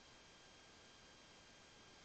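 Near silence: faint, steady room tone.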